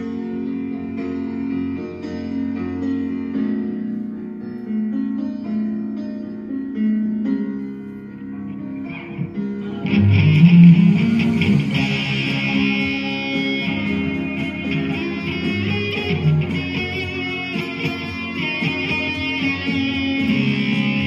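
Electric guitar playing a rock song with fuller lower chords underneath. About ten seconds in, the music gets louder and a brighter, more active guitar line comes in and continues.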